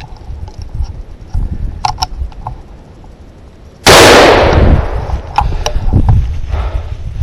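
A single deer rifle shot, very loud and sudden, about four seconds in, its echo dying away over about a second. A few faint clicks come before and after it.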